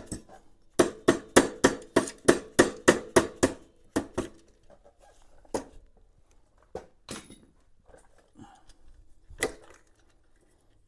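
Rapid hammer taps on the finned cylinder of a 1978 Kawasaki KL250 engine, about five a second, each with a slight ring, to break the cylinder free of the crankcase. The tapping stops about four seconds in, followed by a few single knocks.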